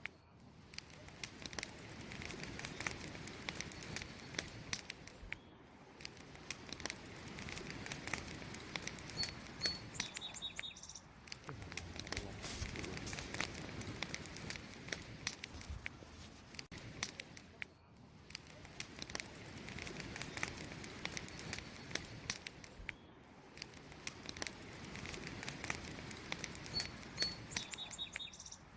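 Wood campfire burning, with a dense stream of small crackles and pops over a soft hiss that swells and fades slowly. A brief high two-note chirp sounds twice, about a third of the way in and again near the end.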